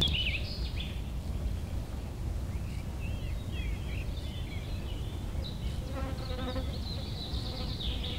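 Outdoor ambience: scattered short bird chirps and a high buzzing over a steady low rumble.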